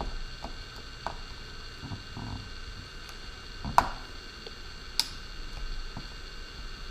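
Scattered light clicks and taps of small tools and drone parts being handled during disassembly, two sharper clicks a few seconds in, over a steady faint electrical hum.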